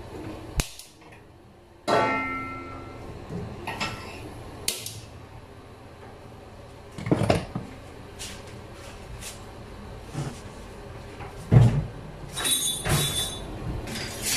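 Kitchen clatter of cupboards and cookware being handled: scattered knocks and clinks, two of them ringing briefly, about two seconds in and near the end.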